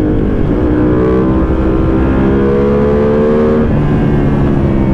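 Ducati Panigale V2's L-twin engine, fitted with an open exhaust and its catalysts removed, pulling hard under acceleration. Its note rises steadily, drops sharply at an upshift about three and a half seconds in, then pulls on.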